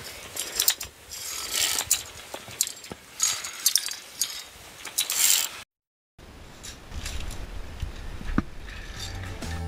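Via ferrata lanyard carabiners clicking and scraping along the steel safety cable, with scattered metallic clinks, for about five seconds. The sound cuts off abruptly, and music begins near the end.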